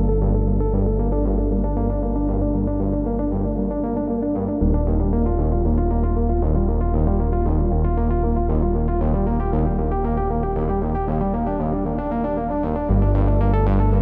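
Electronic ambient music: synthesizer pads and soft keyboard notes over a held deep bass drone, with no drums. The bass moves to a new note about four and a half seconds in and again near the end.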